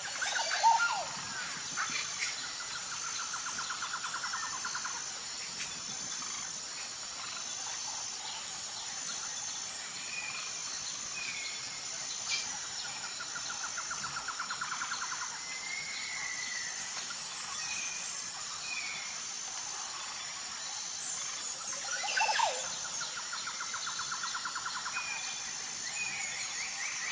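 Tropical jungle ambience: insects keep up a steady high drone while birds call over it, with several rapid trills of about two seconds each and short chirps. Two sharper, louder calls stand out, one about a second in and one about two-thirds of the way through.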